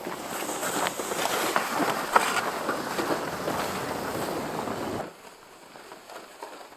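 Boots crunching on snow and a plastic pull sled scraping along the snow behind them, close and crackly. About five seconds in it drops suddenly to fainter scattered crunching steps.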